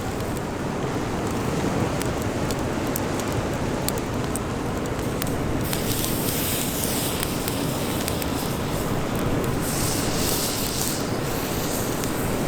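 Steady rushing of wind and surf, with scattered small crackles of a wood campfire. A brighter hiss swells up about six seconds in and again about ten seconds in.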